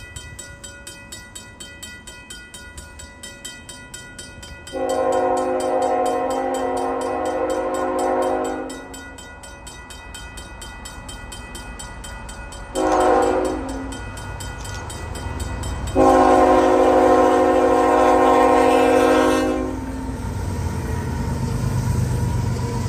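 Nathan K5HL five-chime horn on a CN GE ET44AC freight locomotive sounding for a level crossing: a long blast, a short one, then a second long blast as the train approaches. A mechanical crossing bell rings steadily underneath, and near the end the locomotives' diesel engines and wheels pass close by with a low drone.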